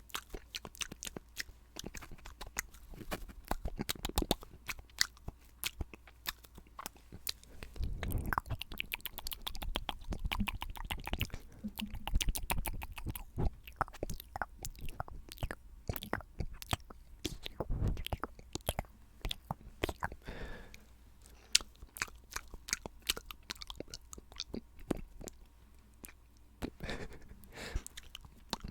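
Close-miked ASMR spit-painting mouth sounds: a dense, irregular run of wet clicks and smacks of the lips and tongue.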